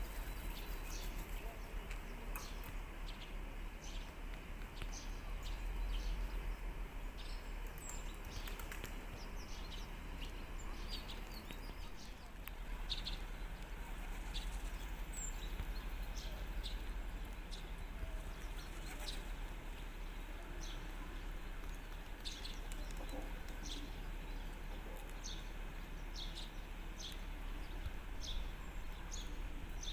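Outdoor ambience with many short, high chirps and ticks from small birds scattered through it, over a steady low rumble.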